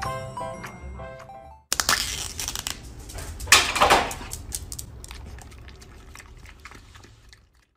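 Background music for the first second and a half, then a foil lid being peeled off a small plastic cup: crinkling and tearing, loudest about halfway through, then fading to light rustles.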